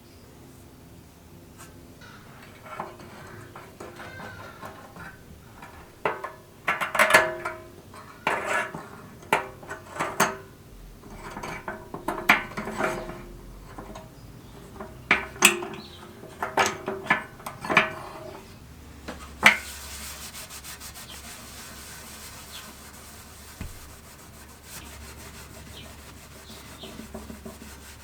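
Hand work on a rusted steel jerry can: irregular scraping, rubbing and knocking strokes on the metal, the loudest around the middle. A sharp knock comes about two-thirds of the way through, and a steady hiss follows and carries on to the end.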